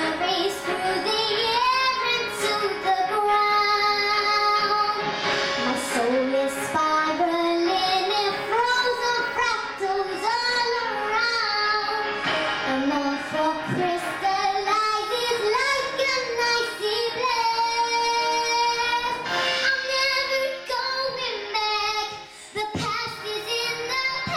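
A young girl singing a ballad into a microphone over a recorded instrumental backing track, with long held notes and a short drop in level about 22 seconds in.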